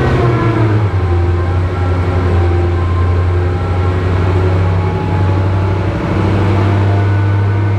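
A vehicle engine running with a steady low drone that shifts slightly in pitch about a second in and again near the end.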